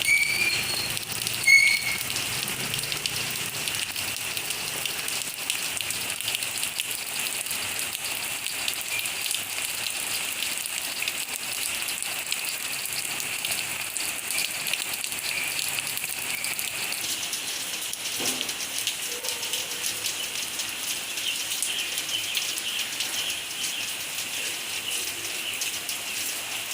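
Steady rain falling, a dense even patter throughout. Near the start, two short high chirps sound about a second and a half apart.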